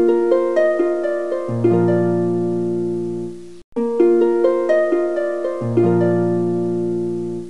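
Background music: a short plucked-string melody of ringing, decaying notes over a held low note, looping twice with a brief break in the middle.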